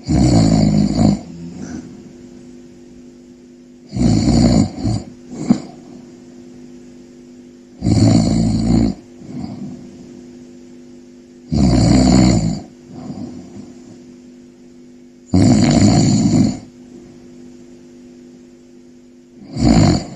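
Snoring: a loud snore roughly every four seconds, six in all, each lasting about a second, several followed by a softer breath.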